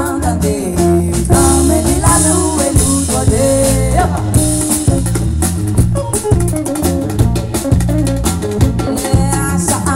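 Live band playing, with a woman singing lead over electric guitar, bass guitar and drum kit keeping a steady beat.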